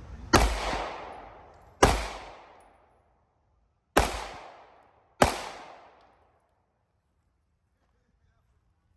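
Four handgun shots fired in two pairs, about a second and a half apart within each pair. Each shot is a sharp crack with a ringing echo that fades over about a second.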